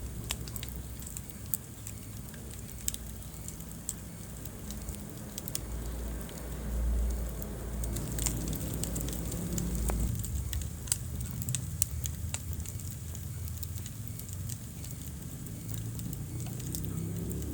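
Wood fire crackling in a fireplace, with irregular sharp pops over a low rumble of the flames.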